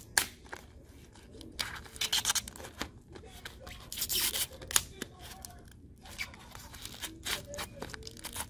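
Hands handling a frozen, tape-wrapped phone screen: irregular crinkling and scraping of tape and glass, with scattered sharp clicks and a few louder rustling bursts.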